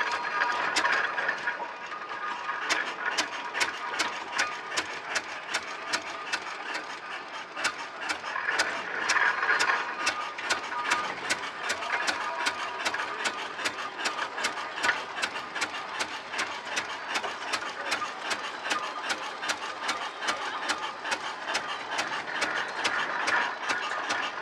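Victoria oil ploughing engine's horizontal twin-cylinder petrol-paraffin engine running slowly, with a steady mechanical clatter of about three to four beats a second.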